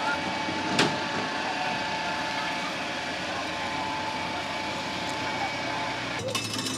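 Spinning carnival ride running, a steady mechanical hum with a constant whine, and a single sharp clack about a second in.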